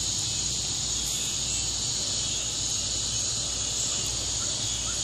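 Steady, high-pitched chorus of insects, unbroken.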